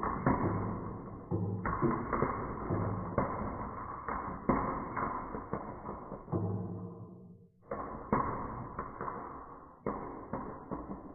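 Marbles rolling and clacking down a wooden marble run: a steady rolling rumble broken by repeated sharp clicks and knocks as they drop and strike the track pieces. There is a short lull about two-thirds of the way through.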